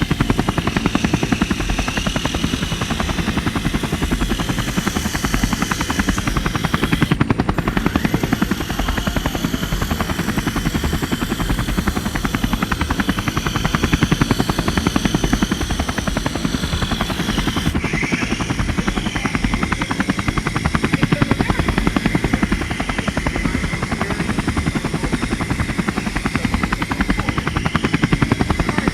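Radio-controlled EC-135 model helicopter flying: fast, steady rotor chop under a high motor whine whose pitch shifts a couple of times.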